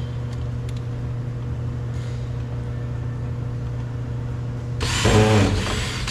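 Power drill-driver spinning for about a second near the end, its whine falling in pitch, backing out a Phillips screw from a car door trim panel, over a steady low hum.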